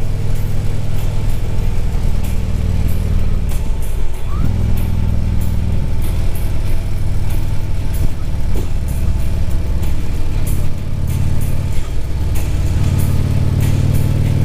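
Harley-Davidson V-twin motorcycle engine running at road speed under wind rush. The engine note dips and picks up again twice, about four seconds in and near the end.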